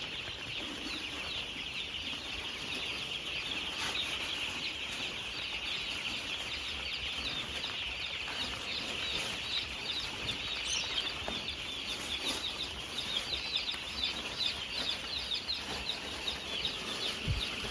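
A large flock of four-day-old broiler chicks peeping continuously in the brooding shed, a dense chorus of high cheeps.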